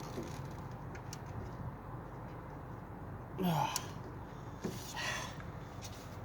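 A man grunting with effort about three and a half seconds in, then a breathy exhale about a second later, as he strains to work a stuck air intake elbow loose; a few faint clicks and a steady low rumble underneath.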